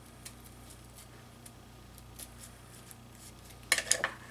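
Snow crab leg shell being cracked and pried apart by hand. Faint scattered clicks, then a quick cluster of sharp cracks and snaps near the end.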